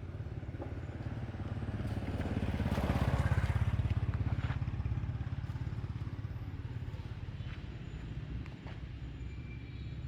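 An engine running with a steady low rumble, growing louder a couple of seconds in and easing off again after about five seconds, as if a vehicle passes by.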